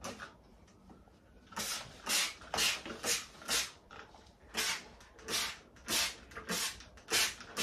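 Handheld trigger spray bottle squirting neem oil solution onto a houseplant's leaves: about ten short, sharp hissing sprays in quick succession, roughly two a second, starting after a pause of about a second and a half. The sprayer has quite a harsh pressure.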